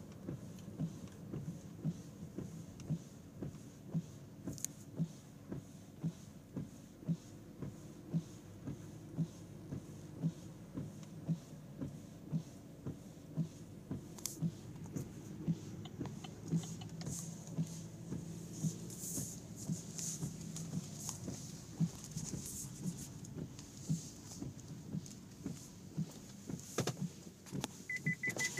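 Cabin sound of a 2013 Chevrolet Volt rolling slowly with propulsion power reduced. A steady ticking repeats about once every 0.7 seconds over a low running hum, and a high, rapid beeping starts near the end.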